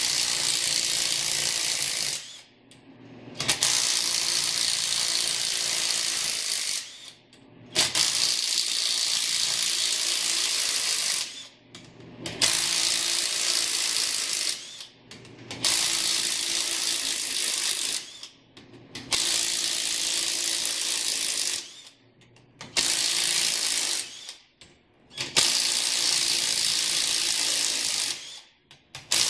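Cordless power tool spinning out the already-loosened ring gear bolts on a Toyota Land Cruiser differential carrier. It runs in about eight steady bursts of two to three seconds, each with a short pause between.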